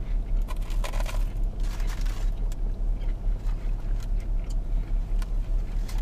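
Two people chewing crispy crumbed prawn burgers, with scattered soft crunches and a couple of brief paper-wrapper rustles in the first two seconds. Under it all is a steady low hum in the car's cabin.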